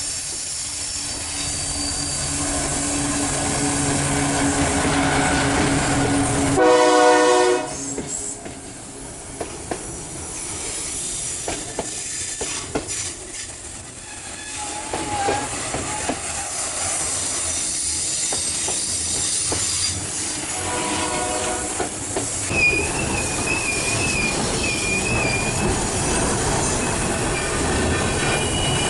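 Freight train running with a steady rumble of wheels on rail. The locomotive horn sounds once, loudly and briefly, a little under a third of the way in, and again more faintly about two thirds in. High wheel squeal wavers near the end as the wagons take a curve.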